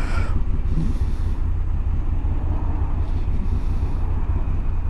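Moto Guzzi V85TT's air-cooled V-twin idling, a steady low rumble.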